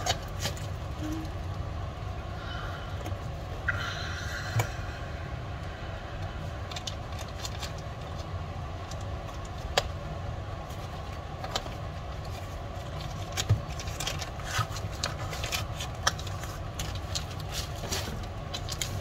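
Cardboard box and plastic packaging of a Sony ZV-1 camera being opened and handled: scattered light clicks and crinkles over a steady low hum.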